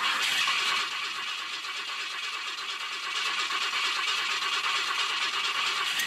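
Ford F100's engine being cranked over by its starter for several seconds without catching: a slow, hard start that the owner puts down to a rich mixture, with fuel percolating out of the carburetor and fouling the plugs.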